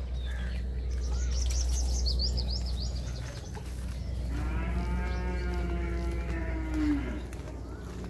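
A cow mooing once: one long call of nearly three seconds, starting about halfway in and falling in pitch at the end. Before it, small birds chirp quickly and high, over a steady low hum.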